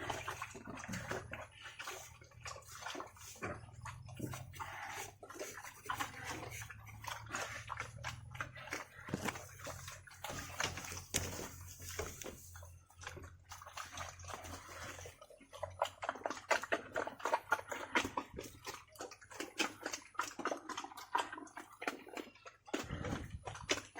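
Pigs eating wet feed from a trough: a continuous, irregular stream of wet smacking, slurping and sloshing, busier in the second half.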